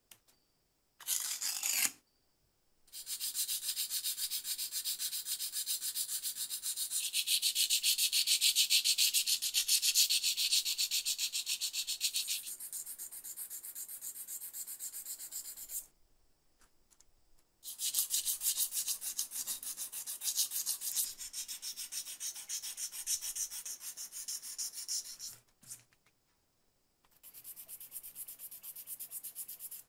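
Hand sanding of small metal lighter parts with fine abrasive paper: rapid back-and-forth rubbing strokes with a dry, hissy scratch. They come in several runs broken by short silences, and they are loudest a third of the way in.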